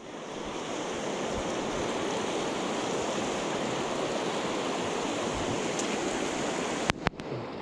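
Rushing water of a shallow, rocky river running over stones, steady throughout, with two or three sharp clicks about seven seconds in.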